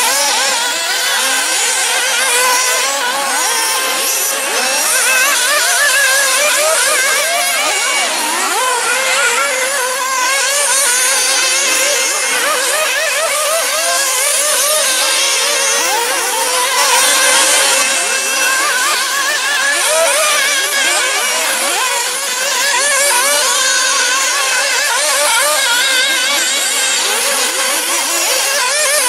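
Several 1/8-scale nitro RC buggies racing at once: their small two-stroke glow engines whine at high pitch and rev up and down constantly, the pitches overlapping into one continuous buzzing din.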